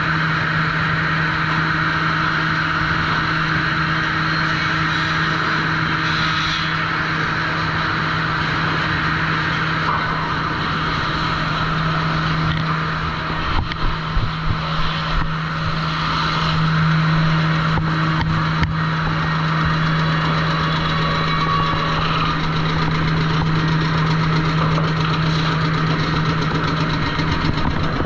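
Sawmill trimmer machinery running steadily with a constant low hum. About 13 to 15 seconds in the level wavers, and a few sharp knocks follow.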